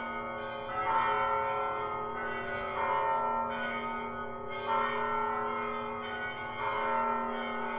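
Church bell ringing, struck four times about two seconds apart, each stroke ringing on under the next over a steady low hum.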